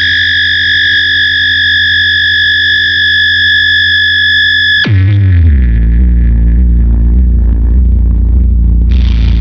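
Electric guitar through a Big Muff fuzz and MXR Analog Delay: a high note is held steady for about five seconds, then sweeps sharply down in pitch into a low, heavy fuzz drone. A short bright noisy flare comes near the end.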